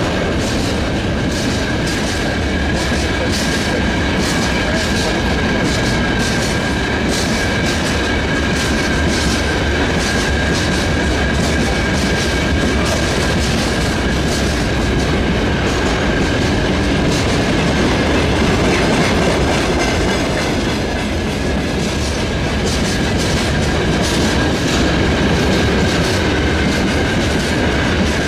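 Freight train of open gondola wagons rolling past: a steady rumble of steel wheels on rail with rapid clicking over the rail joints, and a thin steady whine from the wheels above it.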